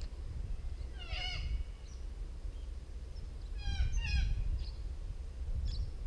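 Three short, whining animal calls: one about a second in, then two close together near four seconds. A low rumble runs underneath.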